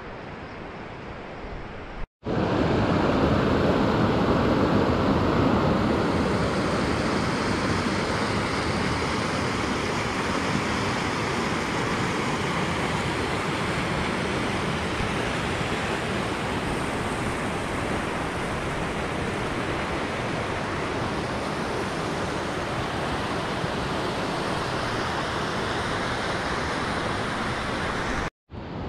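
Steady rush of falling water from a waterfall, a continuous even roar without pauses. It cuts in abruptly about two seconds in, is loudest in the first few seconds, and drops out briefly near the end.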